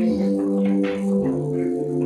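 Slow instrumental music: held notes in a low-to-middle register, moving to new pitches every half-second to a second.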